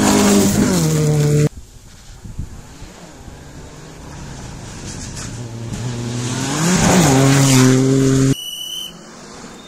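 Two rally cars pass flat out on a gravel stage, one after the other. Each engine is at high revs and its pitch drops as the car goes by. Both passes cut off abruptly.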